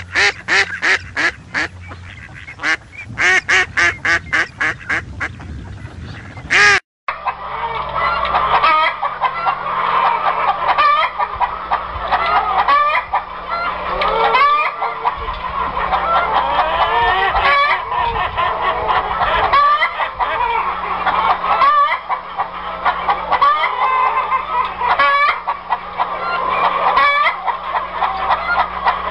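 Ducks calling in a quick run of short, repeated calls for about seven seconds. After a sudden cut, a flock of chickens clucks continuously, with many birds calling over one another.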